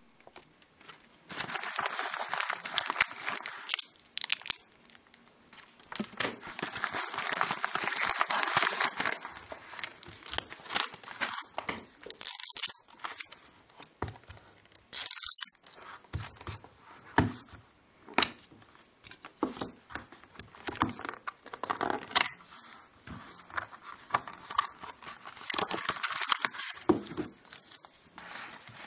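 A padded paper mailing envelope being torn open and crinkled, with two long stretches of tearing and rustling in the first ten seconds. Then come short scrapes, clicks and crinkles as an iPod Touch box and its paper cards are handled.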